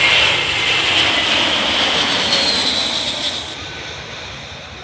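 Jet engines of a JetBlue Airbus airliner passing low overhead on final approach, gear down: a loud rush of jet noise with a high whine that slides down in pitch, dying away from about three and a half seconds in.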